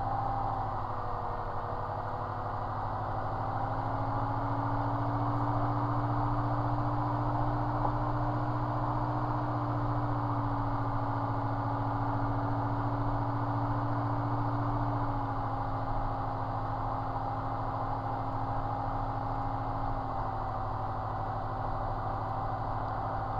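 Light aircraft's piston engine and propeller running at low taxi power, heard inside the cockpit: a steady drone whose pitch rises slightly about four seconds in and dips back about fifteen seconds in.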